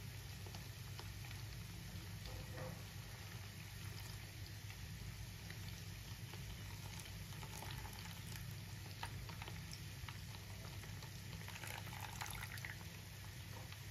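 Ghee bubbling and crackling steadily in a kadhai as cream cooks down and the milk solids fry in the clear butterfat, over a steady low hum. About twelve seconds in, a spoonful of hot ghee is poured back into the pan.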